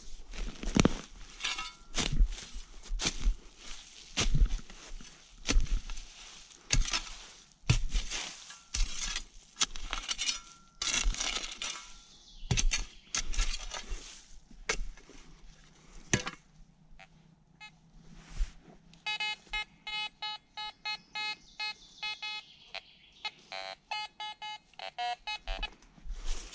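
Irregular clicks, knocks and rustling for a little over half the time, then, from about two-thirds of the way in, rapid short electronic beeps at one steady pitch, stuttering on and off.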